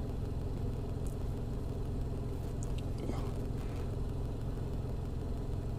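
Steady low rumble, with a few faint clicks about a second and three seconds in.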